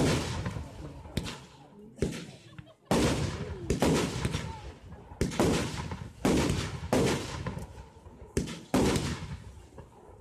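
Aerial fireworks shells bursting one after another. There are about ten sharp bangs, each dying away over about half a second.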